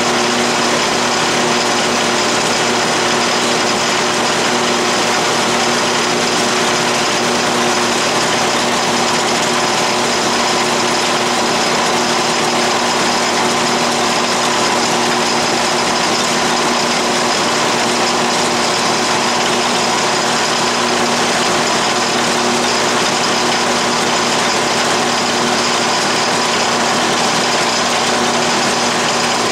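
12-inch Atlas/Craftsman metal lathe running steadily while its tool cuts a 3-degree taper along aluminum bar stock. It makes an even hum with a few held tones over a hiss.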